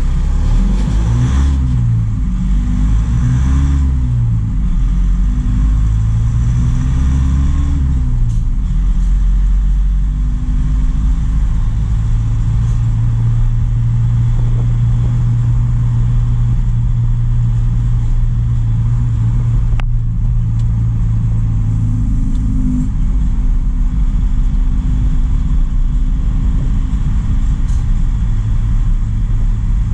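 Truck engine running under way: its pitch rises and falls several times in the first several seconds, then settles into a steady drone for the rest of the time.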